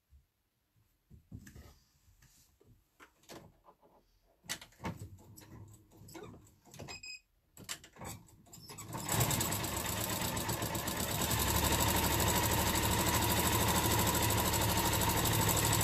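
A few soft knocks and rustles as layered fabric squares and wadding are positioned under the needle, then from about nine seconds in an electronic sewing machine fitted with a walking foot stitching steadily through the layers with a fast, even needle rhythm.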